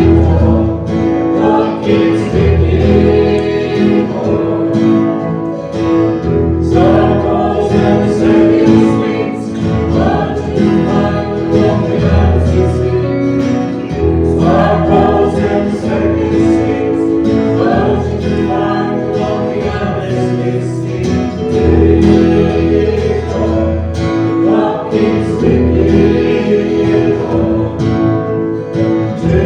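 A group of voices singing a Christian worship song over instrumental accompaniment with a steady bass line.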